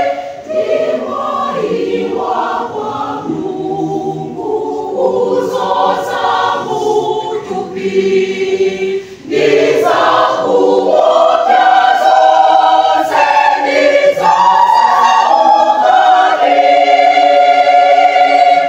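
Mixed-voice church choir singing a hymn unaccompanied, in parts. The singing is softer through the first half, then swells fuller and louder about halfway through.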